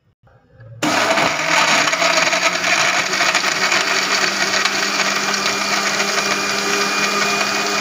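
Electric blender motor starting suddenly about a second in and running steadily at one speed, blending strawberries, ice cubes, sugar and water into juice.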